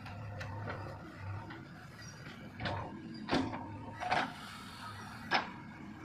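JCB 3DX backhoe loader's diesel engine running steadily while it digs, with several sharp clanks and knocks from the bucket and arm. The loudest knocks come about three and a half and five and a half seconds in.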